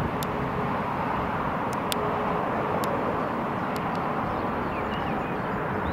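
Twin-engine jet airliner on final approach, its engines giving a steady rushing noise with a faint steady hum under it. A few faint chirps come in near the end.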